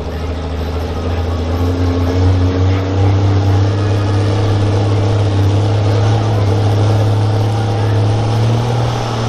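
Turbo-diesel pickup engine running under load at the start of a pull against the weight sled, a low, steady drone that gets louder over the first two seconds and then rises slowly in pitch.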